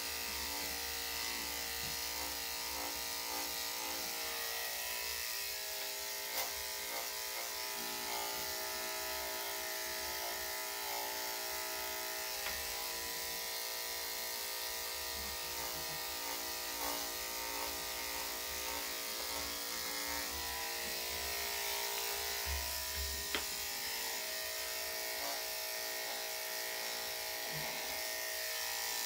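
Corded electric dog clippers with a #7 blade running steadily as they clip through a Shih Tzu's coat: an even electric hum with a few faint clicks.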